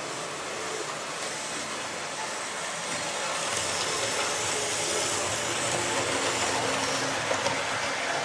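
A model train running along the layout's track: a steady whirr and rumble of motor and wheels on rail, growing louder from about three seconds in as the train nears, with a couple of sharp ticks near the end.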